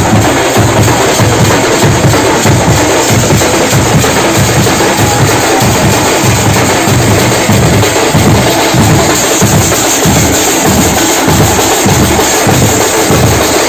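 Loud, fast drumming by a group of festival drums played with sticks. A dense clatter of strokes runs over a steady, even pulse of heavy low beats.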